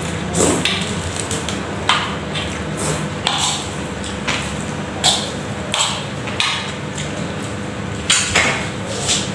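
A fork clinking and scraping against an aluminium wok while instant noodles are eaten from it: irregular sharp clinks roughly once a second, mixed with the sounds of eating.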